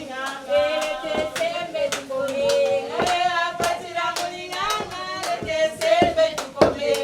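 Women singing with wavering, held notes, accompanied by frequent uneven hand clapping.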